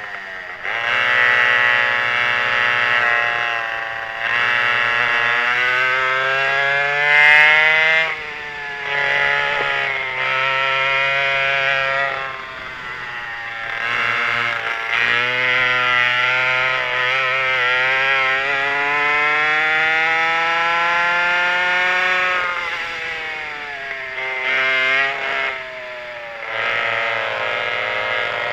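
Twin McCulloch 5.3 cubic inch two-stroke chainsaw engines of a dual-engine vintage kart running at racing speed. The engine note climbs steadily along each straight and drops off sharply each time the throttle is lifted for a corner, several times over.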